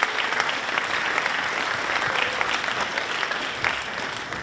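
Audience applause, a dense patter of many hands clapping that begins to fade away near the end.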